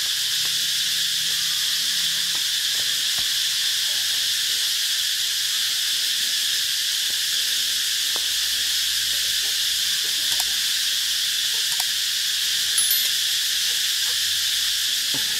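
Steady, high-pitched chorus of insects, with a few faint ticks over it.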